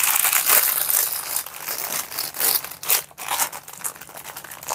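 Plastic packaging crinkling and rustling as it is handled, dense at first and then in sparser crackles.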